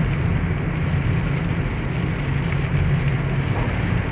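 Steady engine and tyre noise from inside a moving car's cabin on a wet road, with rain on the car.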